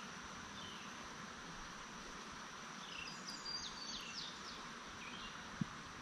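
Woodland ambience: a steady high insect drone with bird chirps, a quick cluster of chirping calls about three to four seconds in. A single sharp click comes near the end.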